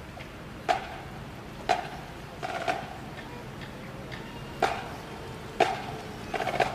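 Sharp clicks, roughly one a second with some coming in quick pairs, over a steady background hiss.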